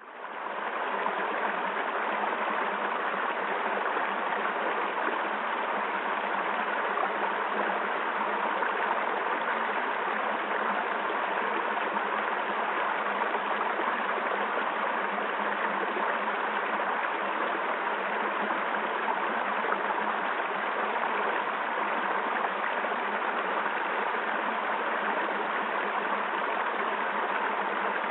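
Steady rushing of flowing water, like a stream, unbroken and even in level.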